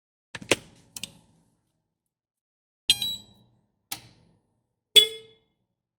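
A handful of sharp metallic clinks and knocks, about five over a few seconds at uneven spacing, a couple of them ringing briefly like metal struck on metal.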